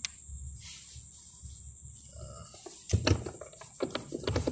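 Glass dipper stopper and attar oil bottle being handled. After a quiet stretch, a run of small clicks and knocks starts about three seconds in as the glass stopper is fitted back into the bottle.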